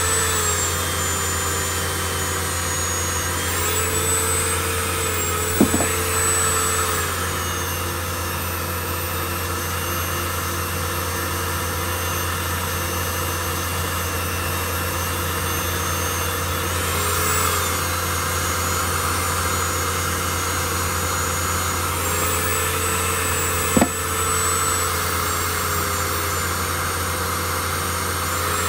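A small lathe and a handheld rotary tool running together, the tool's bit grinding on a spinning tungsten button. The tool's whine shifts down and back up in pitch several times, and two sharp clicks come about eighteen seconds apart.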